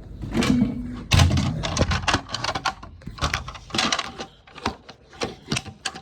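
Handling noise: a rapid, irregular run of clicks, taps and rustles, with a heavy thump about a second in, thinning out near the end.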